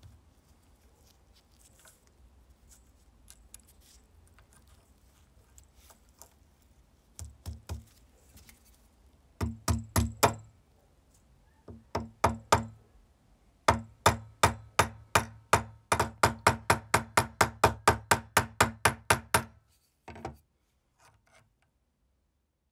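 Hammer tapping a steel riveting tool on a vise anvil to peen over the axle pin of a brass trench lighter's flint wheel. The sharp metallic taps start in small groups about seven seconds in, then run fast and even at about four a second before stopping near the end.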